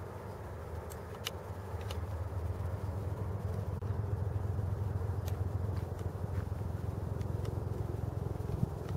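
Steady low rumble with a few faint clicks over it, growing a little louder about two to three seconds in.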